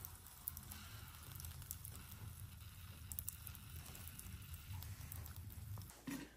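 Faint crackling of a charcoal fire with meat roasting over it on a bamboo skewer, a few sharp pops standing out, over a low steady hum. The sound cuts off near the end.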